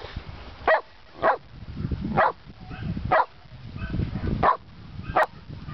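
A herding dog barking while working sheep: about six short, sharp single barks, roughly one a second.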